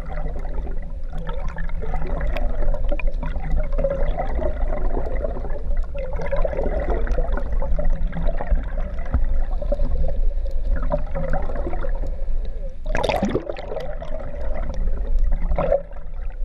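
Water rushing and gurgling past a camera dragged under the water, over a low steady hum. A sudden louder burst of water noise comes about thirteen seconds in.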